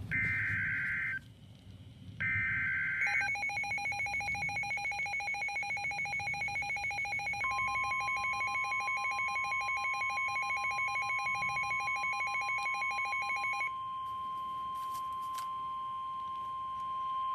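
Emergency Alert System tones opening a new warning: a pair of short, harsh digital data bursts (the SAME header), then a rapidly pulsing electronic alarm beep. About halfway in, a steady single-pitch warning tone joins it, the NOAA Weather Radio 1050 Hz alert tone, which sounds on alone for the last few seconds.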